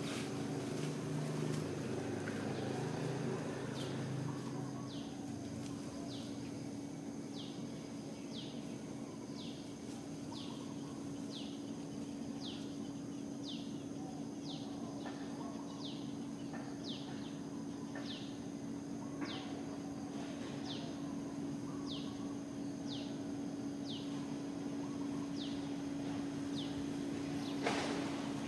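Forest ambience: a bird repeats a short, high, downward-sweeping call about once a second over a steady low hum and a faint high insect whine. A brief sharp sound comes near the end.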